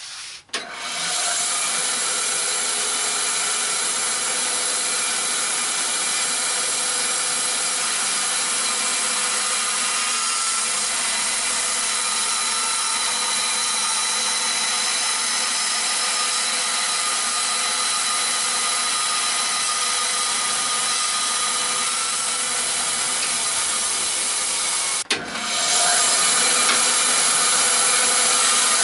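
Band saw running and cutting through a plastic cutting board: a steady saw noise with the blade cutting the plastic. It breaks off briefly near the end and resumes a little louder.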